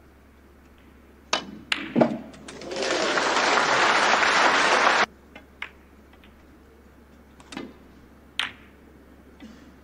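Snooker cue and balls clicking sharply three times in quick succession, then audience applause that swells and cuts off suddenly about halfway through. Near the end come two more sharp clicks of cue on ball and ball on ball.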